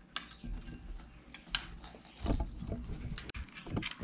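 Candy-coated chocolate sweets being sorted by hand, picked out of a glass bowl and set down on a tabletop: a scatter of small, irregular clicks and taps, with a duller knock a little past halfway.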